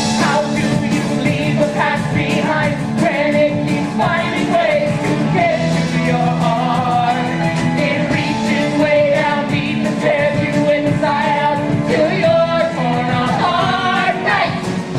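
Live rock-musical number: singers holding long notes over a rock band.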